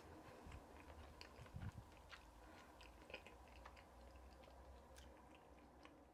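Near silence: room tone with a faint low hum and scattered faint small clicks.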